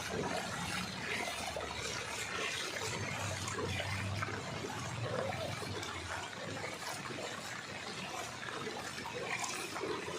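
Floodwater trickling and splashing steadily, with a faint low hum underneath for a few seconds in the middle.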